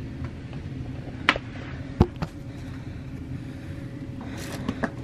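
Luggage being handled and moved: a few sharp knocks and clicks, the loudest about a second and two seconds in, over a steady low hum.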